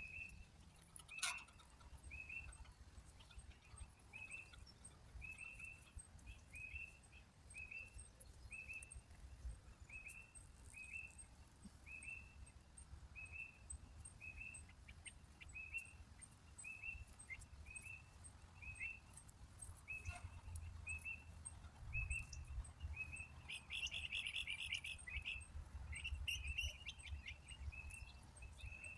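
A small bird chirping over and over: a short, slightly falling chirp about once or twice a second, with a busier run of chirps near the end. A faint low rumble runs underneath.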